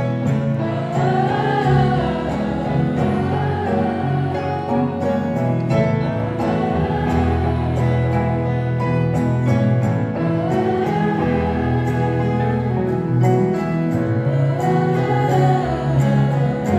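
Live acoustic performance: a woman singing a slow song to acoustic guitar, a second guitar and piano.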